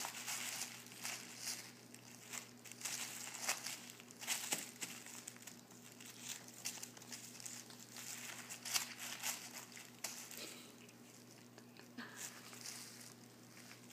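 Tissue paper crinkling and rustling in irregular bursts as a cat rolls and kicks on it while wrestling a fabric toy; busier in the first ten seconds, then fainter and sparser.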